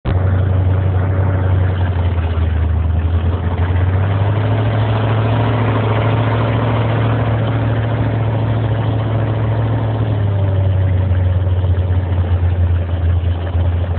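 Jet boat running at speed: the engine gives a loud, steady low drone over a rush of water and wind. The drone dips slightly about ten seconds in.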